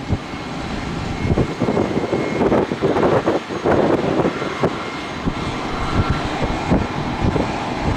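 Jet engines of a Southwest Boeing 737 at takeoff power on its departure roll, a dense rushing roar that surges and dips unevenly, mixed with gusty wind on the microphone.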